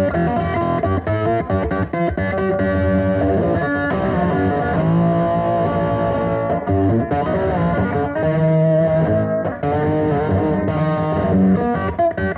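Electric guitar played with a metal slide in a dirty, overdriven tone: picked notes and ringing chords, with the pitch gliding up and down as the slide moves along the strings.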